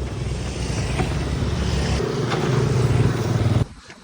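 A motor vehicle engine running steadily. About two seconds in its note gets louder and higher, and it cuts off abruptly near the end.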